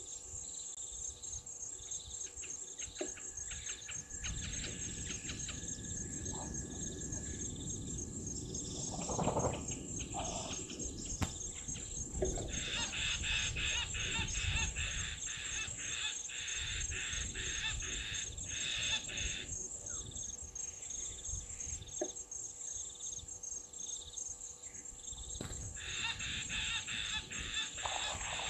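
Egyptian goose bathing, splashing in shallow water, over a steady high-pitched insect drone and scattered bird calls.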